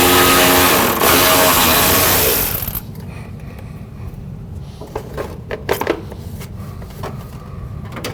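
Power wrench run in two bursts, about a second and then about a second and a half, with a steady whirring hum, backing out a 3/8 bolt. After that, scattered light clinks and knocks of tools and parts being handled.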